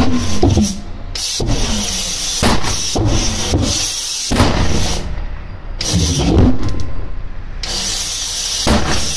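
Pulsejet engine trying to start: a string of loud sputtering bursts about a second apart, each catching briefly and falling in pitch as it dies away, over a hiss of starting air that cuts out twice. It is hard starting, which the owner puts down to fuel pumps that won't change speed because of a bad motor controller and a wrongly sized air starting nozzle.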